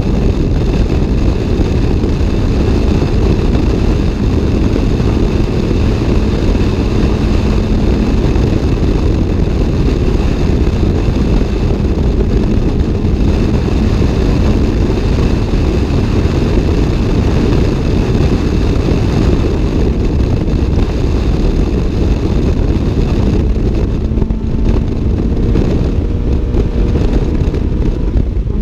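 Toyota AE86's 4A-GE 1.6-litre twin-cam inline-four running hard at track speed, heard from inside the cabin, with heavy road and wind noise. The engine note stays loud and fairly steady, its upper range thinning a little for the last few seconds.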